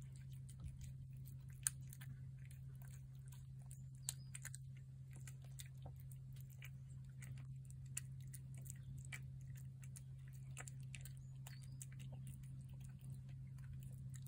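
A cat eating shredded wet cat food from a plate: faint, rapid chewing and lip-smacking clicks, with a few louder clicks, over a steady low hum.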